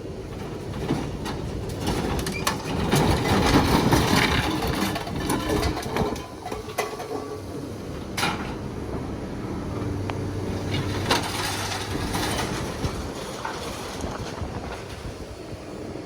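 Scrap metal clattering and banging as the load is unloaded from the truck, with a burst of heavy rattling about three to five seconds in.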